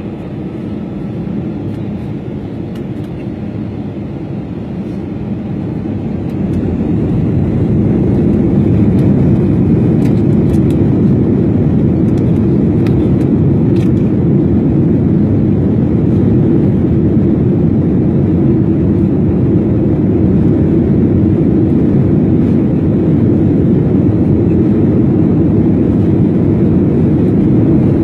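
Jet airliner take-off heard from inside the passenger cabin: a steady rush of engine noise that swells markedly louder about seven seconds in as the engines come up to take-off power, then holds loud and steady through the take-off roll.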